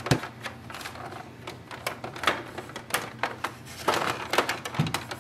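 Irregular plastic clicks and knocks of printer parts being handled and worked loose as a section of the printer comes off.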